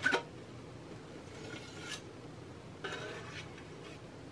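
A metal palette knife scraping excess tempered dark chocolate off the top of a chocolate mould, levelling the shells. There is a sharp knock at the start, then two short, soft scrapes.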